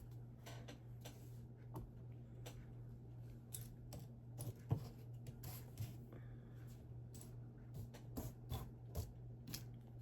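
Plastic Lego bricks being handled and pressed together: a run of small, irregular clicks and taps, the sharpest about halfway through, over a steady low hum.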